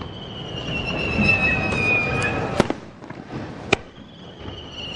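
Fireworks going off: a whistling firework whose tone slides slowly down in pitch for about two seconds, then two sharp bursts about a second apart, with another whistle starting near the end.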